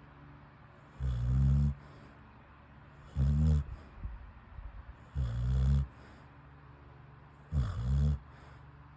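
A sleeping dog snoring loudly: four rumbling snores, each under a second long, about every two seconds, with quiet breathing between.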